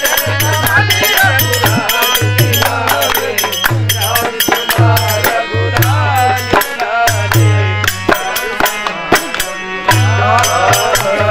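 Live devotional bhajan: harmonium and dholak playing with jingling hand percussion on a steady beat, and a voice singing over them.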